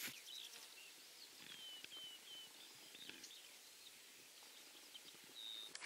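Near silence of open countryside with a few faint, short bird chirps and whistles scattered through it, one short steady whistle near the end.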